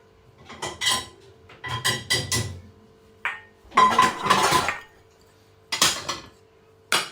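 Dishes and cutlery being unloaded from a dishwasher: about six separate bursts of clattering crockery and metal utensils, some ringing briefly. A faint steady hum runs underneath.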